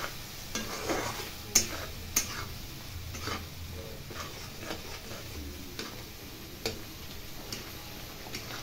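Slotted metal spatula stirring thick spinach purée in a metal kadai, its edge clicking and scraping against the pan at irregular intervals, about one click a second.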